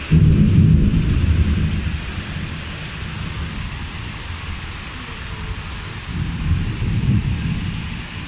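Heavy rain falling steadily, with a low rumble of thunder that starts suddenly and fades over about two seconds, and a second, weaker rumble near the end.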